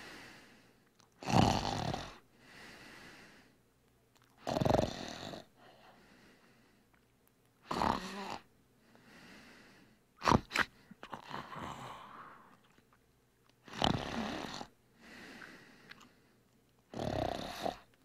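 Snoring: six loud snores about three seconds apart, each lasting about half a second, with a fainter breath sound between them.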